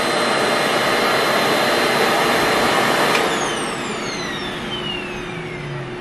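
Revair reverse hair dryer running on its cool setting: a steady rush of suction air with a high whine. About three seconds in it is switched off, and the motor spins down with a falling whine.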